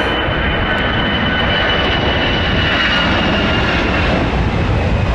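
Jet airliner's engines, a loud steady rush with a high whine that fades out about four seconds in.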